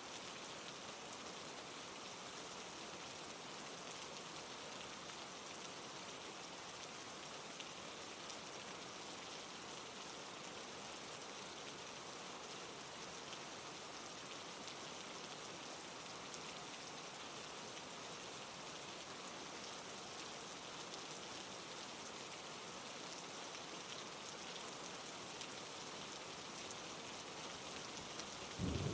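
Steady rain falling, an even hiss of drops. Right at the very end a sudden low rumble of thunder breaks in.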